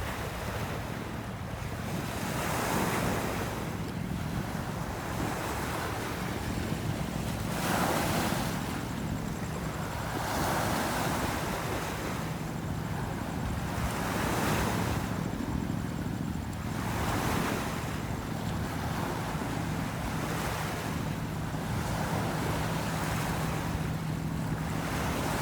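Strong wind gusting across the microphone, the rush swelling and easing every few seconds over a steady low hum.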